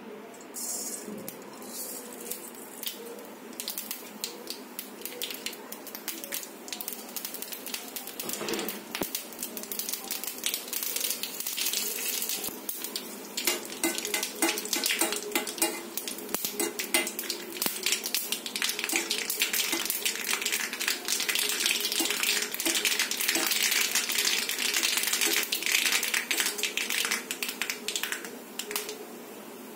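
A tadka of chilies and curry leaves sizzling and crackling in hot oil in an iron kadhai, with a metal spoon scraping and knocking against the pan. The spluttering grows denser and louder from about halfway through.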